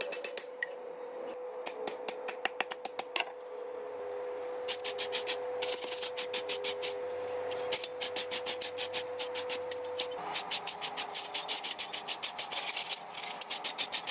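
Rapid scraping strokes, several a second, like a hand tool worked back and forth over a surface, over a steady hum that stops about ten seconds in.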